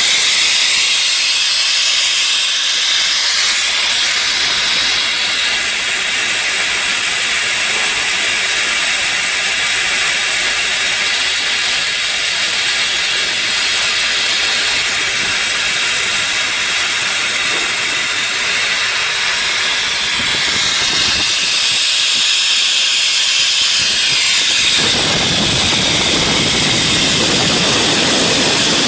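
Loud, steady hissing, like compressed air or gas escaping. A fuller, lower rushing joins it near the end.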